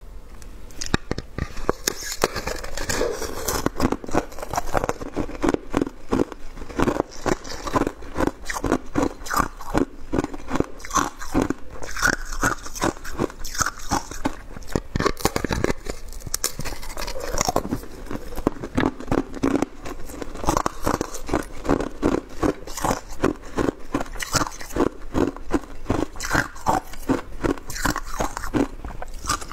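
Frozen shaved ice being bitten and chewed, a dense, continuous run of sharp crunches, several a second.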